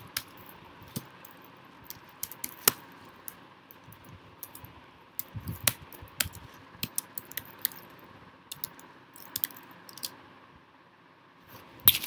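Typing on a computer keyboard: irregular keystroke clicks at an uneven pace, with a louder cluster of keystrokes near the end as a code cell is run.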